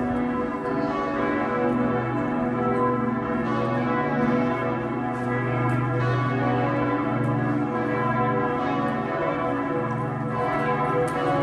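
Several church bells ringing at once in a continuous peal, their tones overlapping and sustained.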